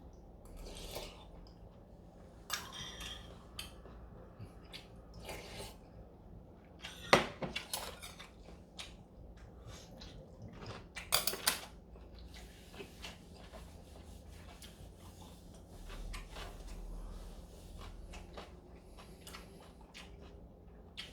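Spoons and chopsticks clinking against bowls while eating, in scattered light clinks, with two sharper knocks about seven and eleven seconds in.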